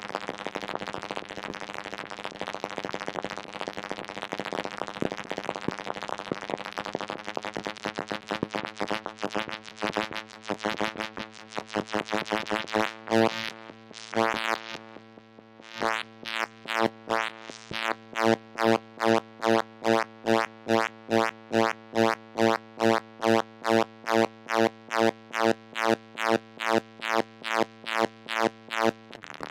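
Moog Mother-32 analog synthesizer modulated by a Comdyna GP-6 analog computer: a buzzing tone over a steady low note, rapidly fluttering at first. After a short dip near the middle it settles into a regular pulsing of the same note, about twice a second.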